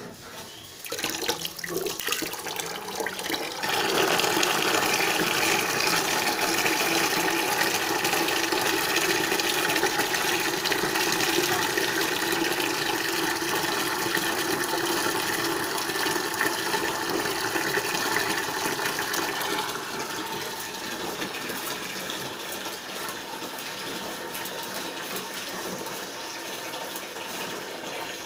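A stream of water pouring and splashing onto a hard floor, rinsing away fish scales. The steady rush starts a few seconds in and drops to a quieter flow after about 20 seconds.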